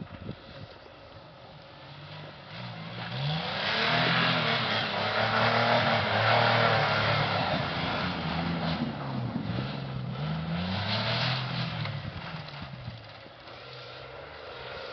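Isuzu Bighorn SUV's engine revving up and down over and over as it slides through deep snow, with a rush of tyres churning snow. It grows louder as it comes close, is loudest midway, and fades as it moves off near the end.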